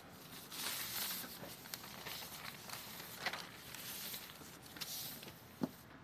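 Sheet of calligraphy paper rustling and sliding as it is handled and shifted, with a few light clicks and a sharper tap near the end.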